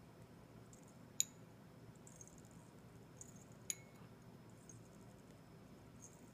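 Glass dropper tip clinking lightly against a glass Corelle dish, two sharp clicks about two and a half seconds apart with a brief high ring, over quiet room tone.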